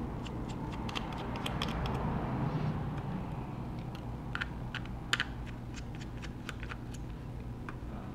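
Irregular light clicks of small repair tools against the tiny screws and metal bracket inside an iPhone 6 as the bracket is unscrewed and lifted out, over a faint steady hum.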